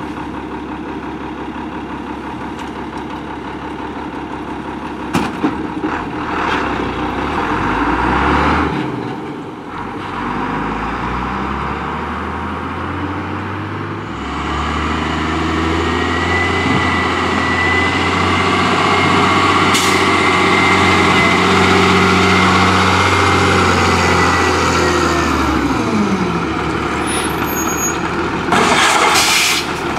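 Rear-loader garbage truck diesel engines. One runs near idle with a brief rev, then an engine is held at raised, steady revs for about ten seconds, typical of running the packer, before winding down. Near the end there is a short hiss of air.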